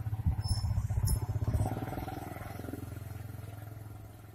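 A motor vehicle engine running nearby, louder at first and then fading away, with a couple of light metal clinks from the clutch locking plate and nut being handled.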